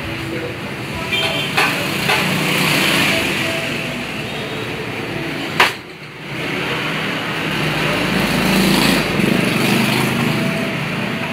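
Road traffic running steadily in the background, with one sharp crack about halfway through: the scored laminated glass sheet snapping along its cut line as it is bent over the table edge.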